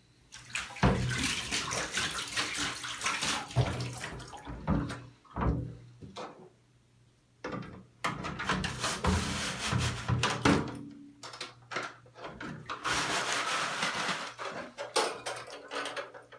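Soapy steel wool being pulled back and forth through the hollow plastic loop of a Dyson fan with water, a wet scrubbing and sloshing in three spells with two short pauses.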